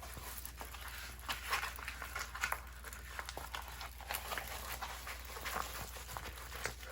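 Small, irregular scratching and rustling of hands working on a diamond painting kit, as when writing a number on it with a pen, over a steady low hum.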